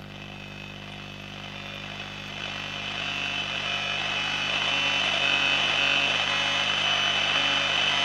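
Philips BF401A valve radio on short wave giving out a buzzing hiss of static as the dial is swept between stations. The static grows louder over the first five seconds, over a steady low mains hum that an extra ripple filter on the audio valve's supply has not cured.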